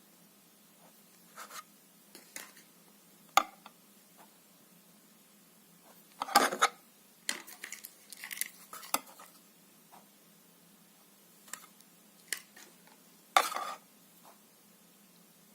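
Knives being handled and set down: scattered clinks and knocks of metal blades. A louder clatter comes about six seconds in and another near the end.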